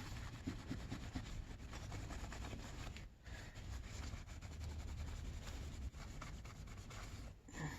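Faint rubbing and small clicks of hands handling computer parts.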